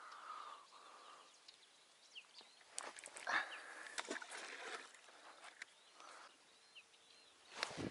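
Small birds chirping faintly, with a cluster of clicks and rustles about three to four seconds in from fishing rods being handled in their rod rest.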